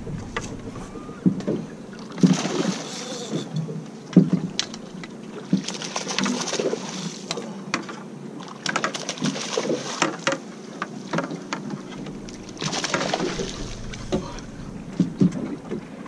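Water lapping and splashing against a small boat's hull, with scattered knocks and clicks as the fishing rod and landing net are handled, and several short splashy hisses spread through it.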